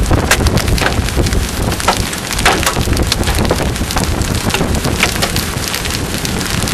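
Golf-ball-sized hailstones pelting down, a loud, dense clatter of hard impacts, with wind rumbling on the microphone.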